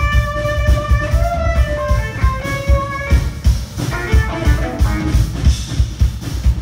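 Live jazz-funk band: an amplified violin holds one long high note for about three seconds, bending it slightly, then breaks into a run of quicker notes, over a driving drum kit and bass.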